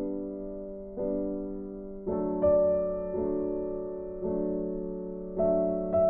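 Slow background piano music: held chords, with a new chord or note struck about once a second.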